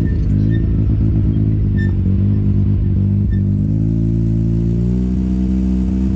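ATV engine running at a low, steady speed, its pitch rising a little about four seconds in, with a few short knocks and rattles as the machine rides over the rough dirt trail.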